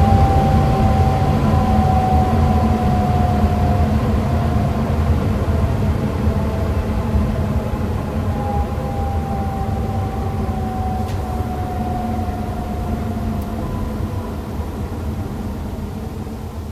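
Furnace ECM blower motor running with a low hum and air rush, and a thin whining moan that slides slowly down in pitch, twice, as the whole sound slowly gets quieter. The moaning is the fault the owner blames on poor tuning in the motor's control module.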